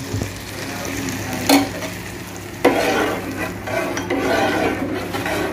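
Hot ghee tadka with fried nuts and raisins sizzling on the milk of sheer khurma in an aluminium pot, as a metal spoon stirs it in. The stirring and scraping grows louder from about halfway through.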